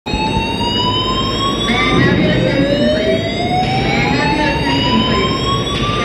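Building fire alarm sounding its evacuation signal: slowly rising whoop tones that start over every few seconds, over a steady high tone.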